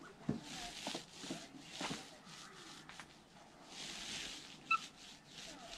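Paint roller on an extension pole being worked up and down the wooden coop siding: repeated soft hissing strokes every second or two with a few light knocks. A brief high chirp sounds once a little before the end.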